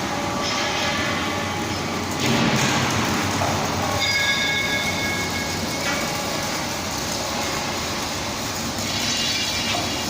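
H-beam straightening machine running, a steady mechanical noise of its rollers and drive. High whining tones sound between about four and six seconds in and again near the end.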